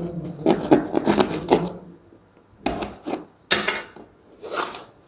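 Knife slicing through the label, tape and cardboard of a shipping box in a quick run of short scraping strokes, then a few separate cardboard scrapes as the box flaps are pulled apart.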